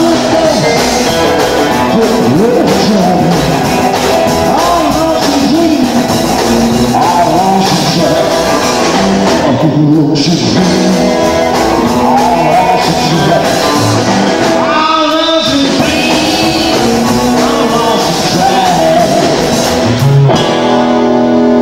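Live rock and roll band playing loud, with electric guitar, bass guitar and drums.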